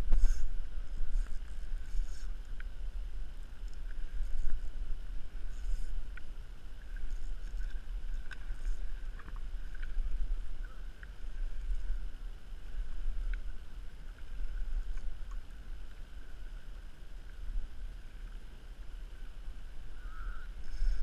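Wind buffeting the camera's microphone as a low, uneven rumble, with water lapping against a plastic kayak's hull and a few faint clicks.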